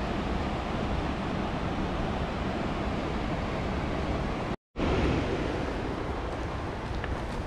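Steady rushing of the Linville River churning far below, mixed with wind on the microphone. The sound drops out completely for a moment about four and a half seconds in.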